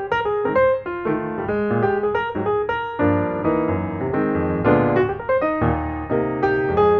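Background piano music, a steady run of notes over a bass line.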